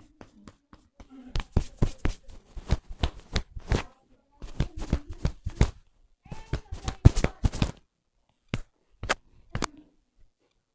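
Hands striking a head during a percussion head massage: quick runs of sharp slaps and taps, several a second, in three bursts, then three single slaps near the end.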